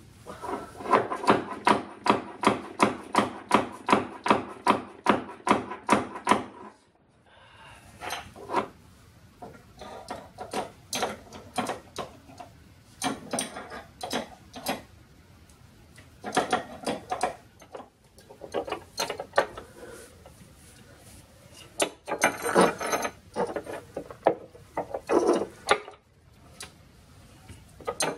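Ratchet spanner clicking as it turns the nut on the coach bolt of a home-made wooden block jack, raising the block to lift a sagging cabinet shelf. A steady run of about three clicks a second for roughly the first seven seconds, then irregular spells of clicking and small knocks.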